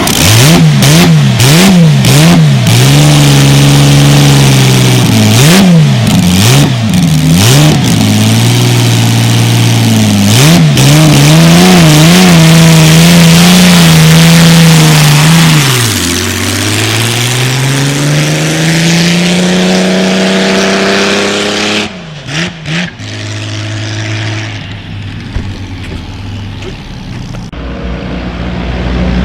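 Vintage racing car engine revved in a series of quick throttle blips, then held at high revs with the pitch wavering. About halfway through the revs drop and then climb steadily as the car pulls away; after a sudden dip the engine note carries on lower and fades out.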